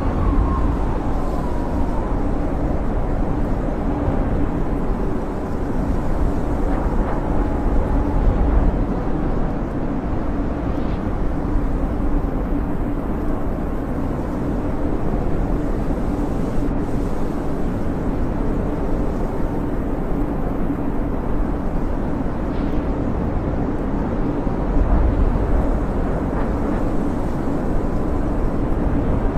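Snowstorm wind blowing steadily with a deep rumble, and a faint high whistle that wavers in the first several seconds.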